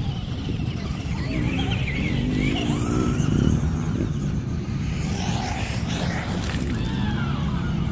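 Radio-controlled off-road cars racing on a dirt track, their motors whining up and down in pitch as they speed up and slow down, over a steady low rumble.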